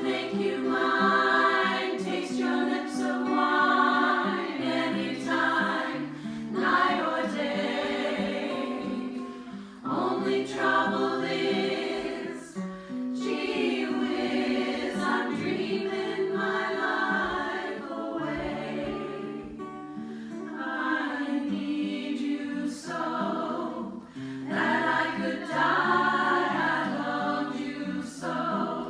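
A vocal group singing in harmony, phrase after phrase, over a low sustained bass part.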